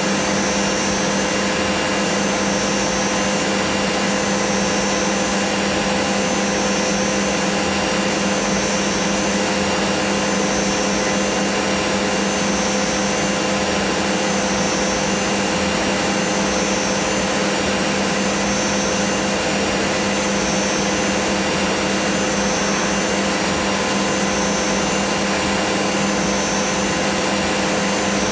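CNC milling machine spindle running as its cutter mills a small pattern block clamped on the rotary table: a steady hum and whine over an even hiss.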